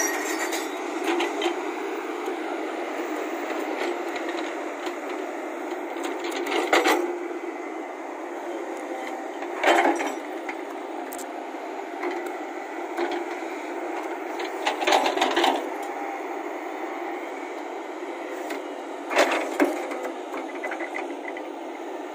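Volvo hydraulic crawler excavator running steadily as it digs soil, with a handful of short sharp cracks and knocks as the bucket strikes and breaks into the ground.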